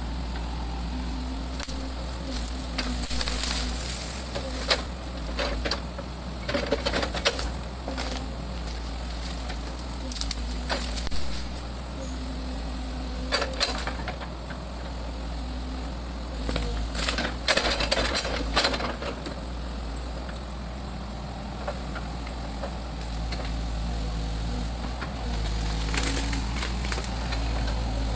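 Sumitomo SH100A2 excavator's diesel engine running steadily, broken by irregular bursts of crackling and snapping as branches and brush break under the machine's grab and tracks, the loudest around the middle.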